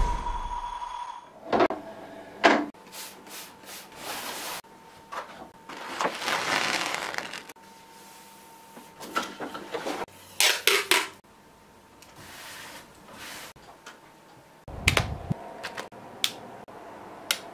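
Handling sounds of a wooden drawing board and a clamp mount being set up: a paper pad rubbing and sliding on the board, with scattered knocks and clicks.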